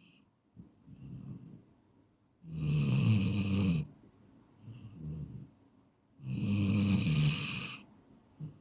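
A person snoring in sleep. There are two loud, low snores, each lasting about a second and a half and about four seconds apart, with softer breaths between them.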